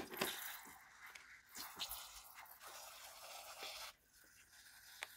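Slime being squeezed out of the neck of a rubber balloon onto foam-bead bricks: a hissing, sputtering flow with small crackles and pops that stops about four seconds in.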